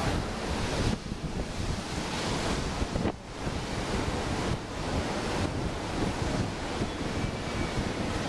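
Rough storm surf breaking and washing up the beach, churned up by an approaching tropical storm, with strong wind buffeting the microphone. The noise dips briefly about three seconds in.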